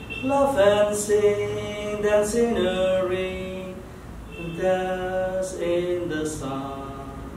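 Small mixed choir of men and women singing a slow song in unison, holding long notes phrase by phrase with short breaks between phrases.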